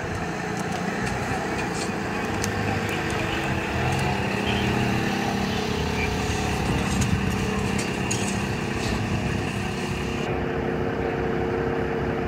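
Steady rumble of an idling vehicle engine close by, with faint voices in the background.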